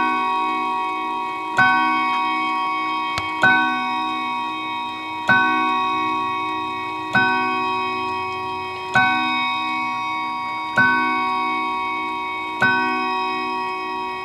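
Howard Miller 612-436 Thomas Tompion mantel clock striking the hour: one ringing note struck again and again at an even pace, about one blow every two seconds. Each blow rings on and fades slowly into the next.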